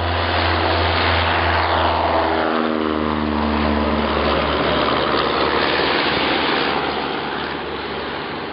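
Cessna 172K's four-cylinder Lycoming engine and propeller at full takeoff power as the plane lifts off and passes close by. The pitch drops sharply about two to three seconds in as it goes past, then the sound slowly fades as it climbs away.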